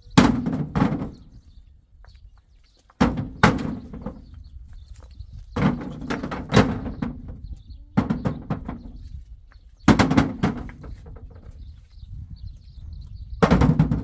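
Heavy knocks and clunks in about six short clusters a couple of seconds apart, from work on a farm trailer's wheel and its hitch to the tractor.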